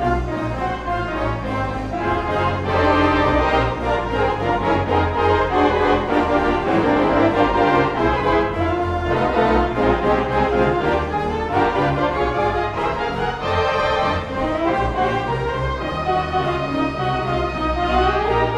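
Mighty Wurlitzer theatre pipe organ playing a jazz arrangement of a 1960 pop song: full sustained chords over a steady pedal bass line.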